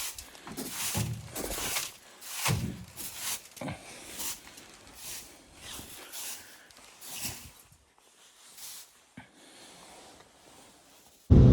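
Footsteps crunching through snow, about one to two steps a second, slowing and fading over the last few seconds. Near the very end, a loud steady droning sound cuts in abruptly.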